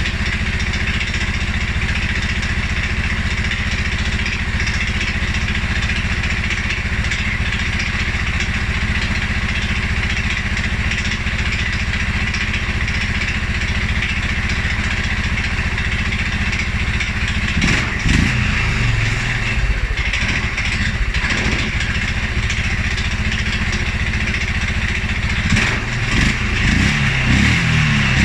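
2011 Polaris Sportsman 550 XP ATV's single-cylinder EFI engine running at a steady idle, then its speed rises and falls unevenly about two-thirds of the way in and again near the end. This is the stumble and low, rough idle after revving that the owner is chasing, with fuel pressure, valves, timing and the EFI sensors all checked and in spec.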